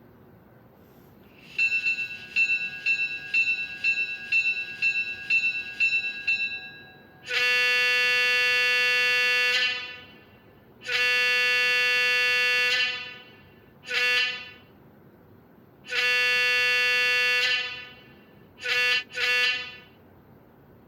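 ESU LokSound decoder playing a diesel locomotive's bell and horn through a SoundTraxx Mega Bass speaker: the bell rings about twice a second for five seconds, then the horn sounds two long blasts, a short one, a long one and two quick short ones.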